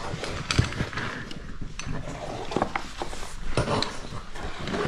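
A caver scrambling up a rock face: hands and gear scuffing and scraping on stone, with many small knocks and clicks of climbing gear, and hard breathing.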